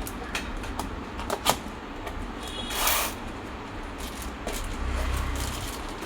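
Cardboard packaging of a power tool being opened and handled: scattered clicks and knocks, with a short scraping slide about three seconds in.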